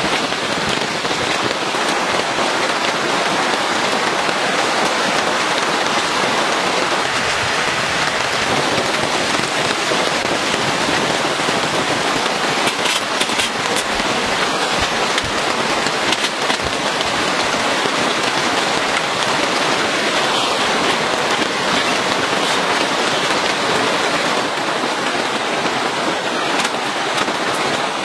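Steady rain falling on a tent. Near the middle come a few light clicks of metal camp-stove gear being handled.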